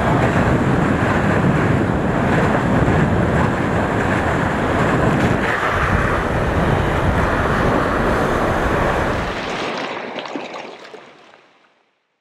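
Water rushing and splashing along the hull of a Volvo Ocean 65 racing yacht sailing fast through waves, with wind buffeting the microphone. It fades out over the last few seconds.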